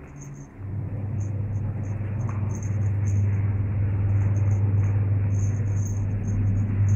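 A steady low rumble that sets in about half a second in and holds, with short faint high chirps scattered over it.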